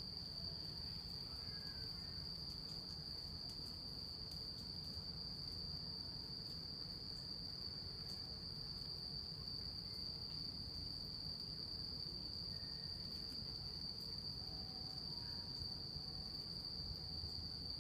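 Crickets trilling steadily at one high pitch without a break, over a low background rumble.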